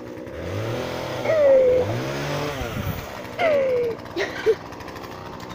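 A motor vehicle engine revving up and easing off twice, with two short falling cries over it.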